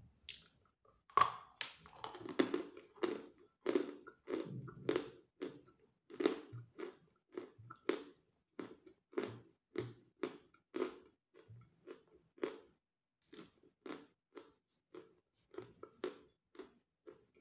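Biting into a block of natural Volokonovka chalk and chewing it: a sharp bite about a second in, then steady crunching chews, about two a second. The crunch is muffled and soft, as this medium-hard chalk gives way almost without effort.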